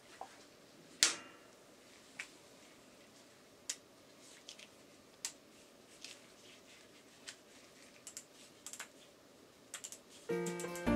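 Scattered sharp clicks and taps from hand tools and engine parts being handled in a workshop. The loudest comes about a second in and rings briefly, and more clicks bunch together near the end. Music starts just before the end.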